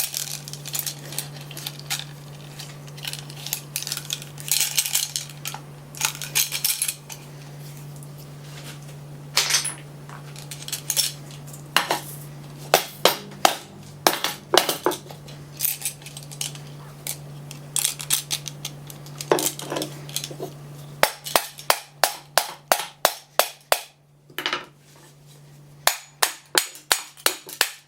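Metal parts of a scroll AC compressor clattering and clinking as it is knocked apart with a hammer. Scattered knocks give way about three-quarters through to a quick, even run of hammer blows, two to three a second. A steady low hum runs underneath until the blows begin.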